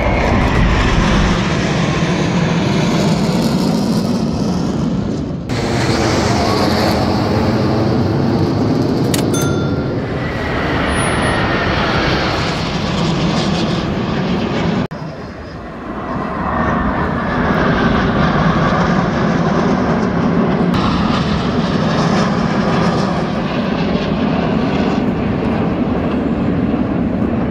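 Jet noise from a formation of T-50B trainer jets, each with a single turbofan engine, flying past, with whining tones that glide in pitch as they pass. The sound breaks off abruptly twice, about five and fifteen seconds in.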